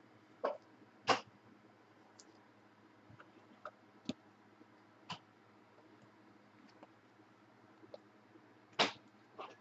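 A few sharp short clicks and taps of handling noise at a desk: two about half a second and a second in, fainter ones in the middle, and another near the end, over a faint steady room hum.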